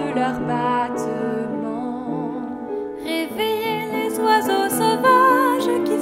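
A woman singing a French song with vibrato, accompanied by an upright piano.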